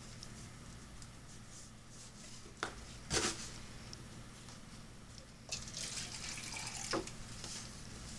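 Water splashing as pepper plants are watered, with a sharp knock a little after two and a half seconds and a louder one just after three seconds. A burst of splashing runs from about five and a half seconds and ends with another knock about seven seconds in.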